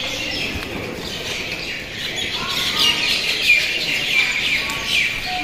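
Many small birds chirping at once, a busy chorus of short, high chirps.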